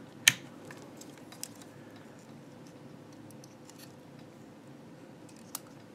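A single sharp click from the rotary function dial of a Fluke 17B+ digital multimeter as it is turned to the AC volts range, followed by a couple of faint ticks as the test probes are handled.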